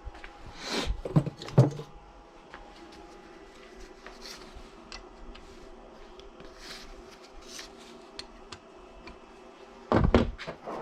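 A cluster of knocks and clatters, as of objects being handled and set down, then a quieter stretch, then another burst of knocks near the end.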